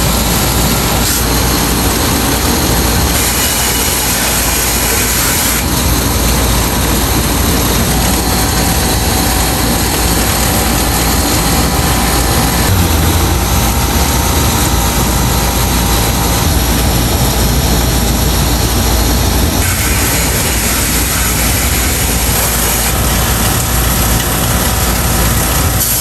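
Outdoor air-conditioner condenser unit running with a steady low hum from its compressor and fan, while a garden hose sprays water onto its coil fins in a loud, even hiss that shifts several times as the spray moves.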